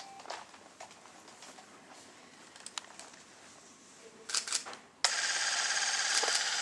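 Faint scattered clicks and small handling knocks in a quiet room. About five seconds in, a loud steady hiss starts abruptly and keeps going.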